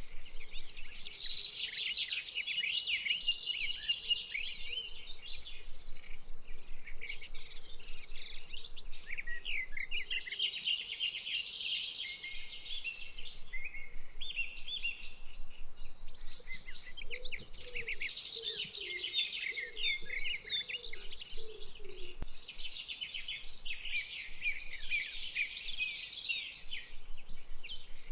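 A dense, continuous chorus of small birds chirping and trilling, with a fainter, lower warbling call about two-thirds of the way in.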